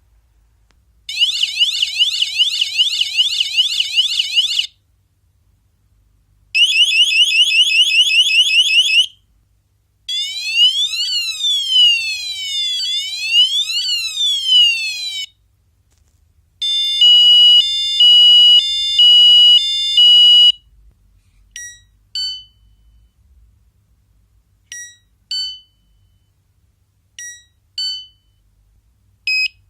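Devolo Home Control siren playing through its alarm tones, one after another, with short gaps between them. First come two loud patterns of fast, repeating rising yelps, then a slow up-and-down wail. Next is a steady pulsing multi-tone beep, and then short double chirps every couple of seconds.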